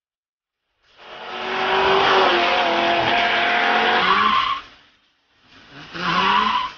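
Allard J2 special's engine running hard under load, heard from on board with a heavy rush of wind and road noise. The sound cuts in abruptly about a second in, drops out near five seconds, and comes back briefly near the end with the pitch rising.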